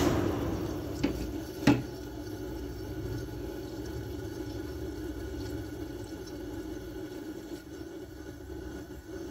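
5,000 BTU Kenmore window air conditioner shutting off: its running noise dies away over the first two seconds, with a faint click at about a second and a sharper click just after. Then the faint sound of refrigerant still flowing in the unit after shutdown.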